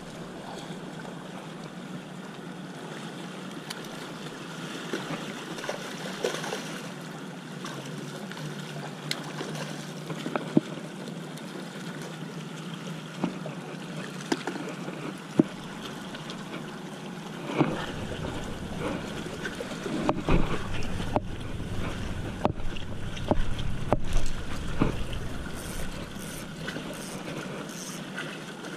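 Steady wind and water noise with scattered light clicks; a low wind rumble on the microphone sets in about two-thirds of the way through and comes in gusts.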